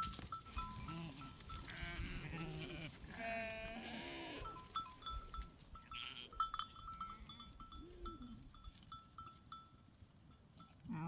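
Bleating from small livestock: several wavering calls, the loudest about three seconds in, with a run of short, repeated high chirps behind them.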